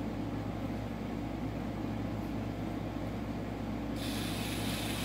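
Steady low background hum of the room, with a hiss that sets in abruptly about four seconds in.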